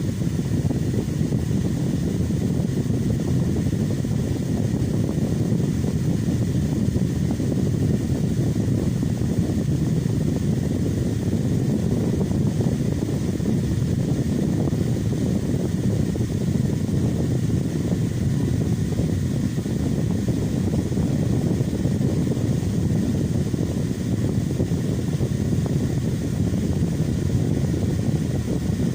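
Electric fan running steadily: a low, even rush of air that doesn't change.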